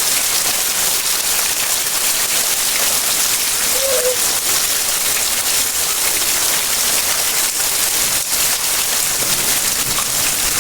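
Heavy rain pouring down, a loud steady hiss of drops hitting surfaces, with a brief faint chirp about four seconds in.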